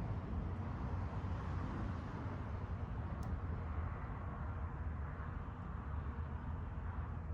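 Steady low rumble of outdoor background noise, with one faint click about three seconds in.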